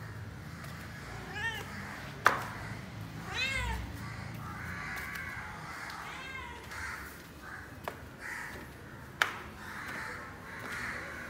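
Domestic black cat meowing several times, asking for food. It gives three cries, the second one the longest. A few sharp knocks fall between them, the loudest between the first and second meow.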